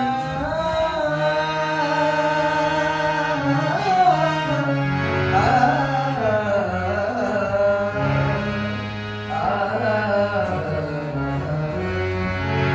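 Live Hindi film song: a male singer's voice with dholak drum rhythm and held instrumental chords underneath.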